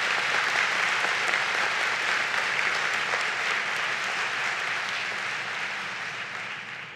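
A large seated audience applauding steadily, dying away near the end.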